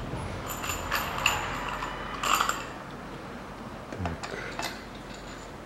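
Light metallic clinks and taps of steel bolts being picked up and started by hand into an engine's lower oil pan, in scattered groups.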